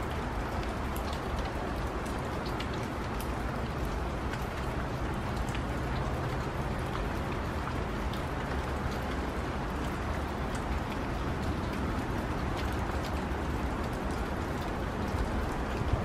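Steady light rain falling, with scattered drops ticking, over a steady low rumble.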